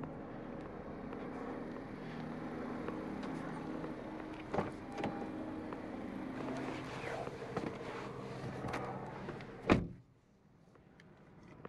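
Driver's door of a 2021 Honda Civic hatchback being opened with a couple of clicks, then slammed shut with one loud thud near the end. After the thud the steady outdoor hum drops away to a quiet car cabin.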